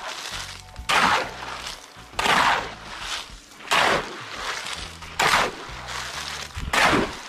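A long-handled digging tool chopping into wet, gravelly soil in a steady rhythm, five strikes about one and a half seconds apart, each a short crunch.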